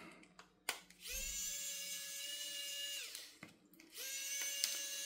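Sequre electric precision screwdriver's small motor whirring as it unscrews small screws: two runs of about two seconds each, each a steady whine that winds up at the start and winds down at the end.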